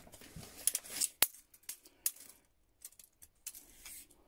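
A few light metallic clinks and clicks from old steel hand tools and a steel tape measure being handled, the sharpest about a second in, with some brief scuffing.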